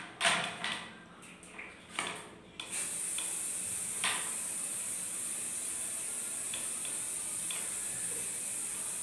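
Aerosol can of artist fixative spray hissing in one steady, continuous spray that starts a little under three seconds in, after a few short clicks and knocks.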